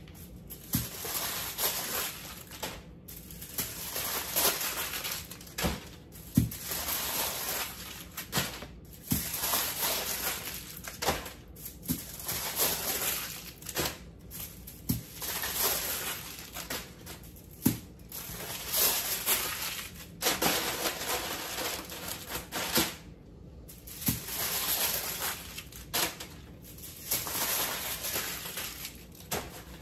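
Aluminium foil crinkling and rustling in repeated bursts as potatoes are rolled up in it, with occasional light knocks.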